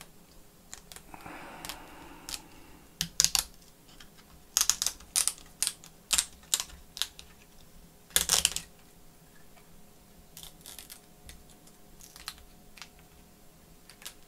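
Irregular clicks and light knocks of small tools and plastic laptop parts being handled as a laptop is taken apart, with a few louder clicks clustered about a third and halfway in.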